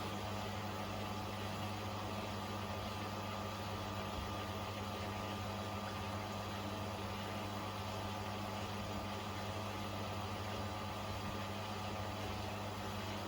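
Beko WTK104121A washing machine running steadily through its rinse programme: a continuous even mechanical hum with no knocks or changes in speed.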